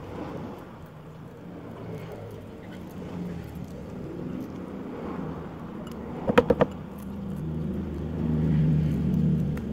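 Low hum of a motor vehicle engine that grows louder near the end, with four quick, sharp clicks a little past six seconds in.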